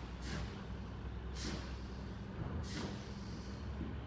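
Garbage truck engine running with a steady low rumble, broken by three short sharp hisses of released air about a second apart, typical of the truck's air brakes.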